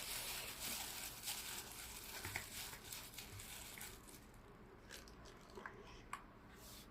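Packaging rustling and crinkling as the keyboard is unboxed. The rustling dies down after about four seconds, leaving a few light clicks.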